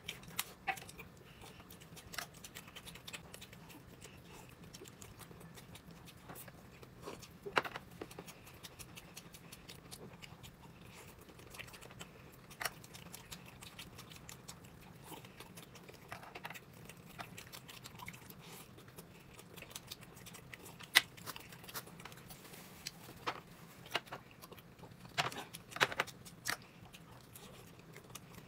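A person eating quietly: chewing, with scattered light clicks and taps from tableware, over a faint steady hum.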